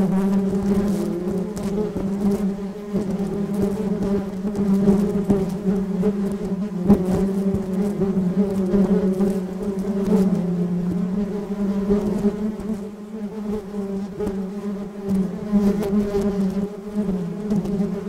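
Bees buzzing in a continuous drone whose pitch wavers slightly, dipping a little about ten seconds in.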